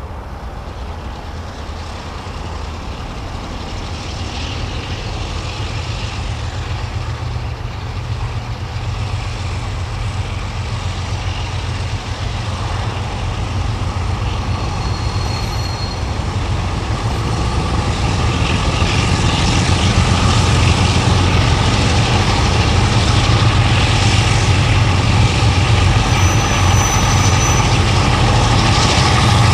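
Vintage diesel-electric locomotive engine running with a deep, steady drone that grows steadily louder.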